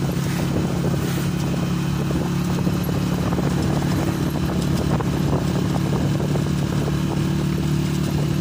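Engine of the camera's own vehicle running steadily while driving at an even speed: a low, constant drone with road noise.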